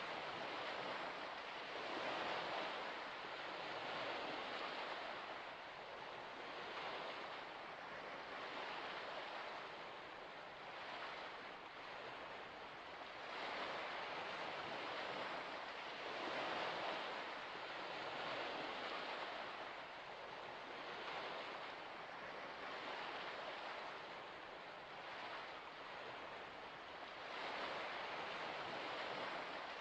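Gentle water lapping, a soft hiss that swells and fades every two to three seconds.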